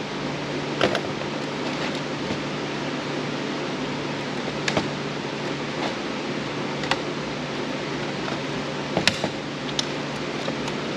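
Steady hiss and low hum like a fan running, with a few sharp clicks and taps of small plastic and metal parts being handled while a Roomba robot vacuum is taken apart.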